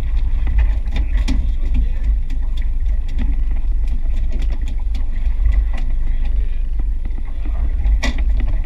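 Steady low rumble of wind on the microphone and the boat's motor on open water, with scattered light clicks and knocks from gear being handled, a sharper knock near the end.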